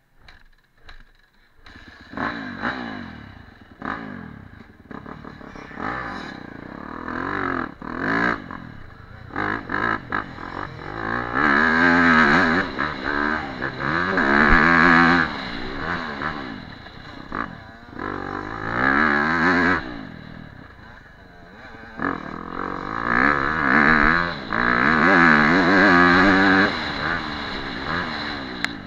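Yamaha dirt bike engine starting about two seconds in, then revving up and down repeatedly as the bike rides off over a dirt track, the pitch climbing and dropping with each burst of throttle.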